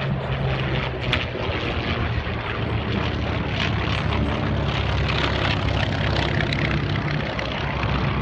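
Propeller-driven piston-engine warbird running with a steady drone: a low hum under a rough noise, holding even with no clear change in pitch.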